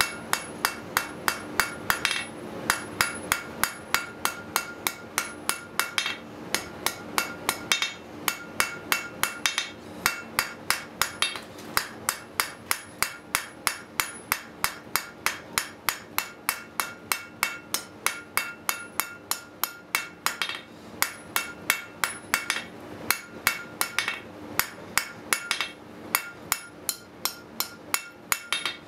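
Blacksmith's hand hammer striking a hot steel bar on a steel anvil, rapid even blows about three a second with a metallic ring, broken by a few brief pauses, as a taper is forged round.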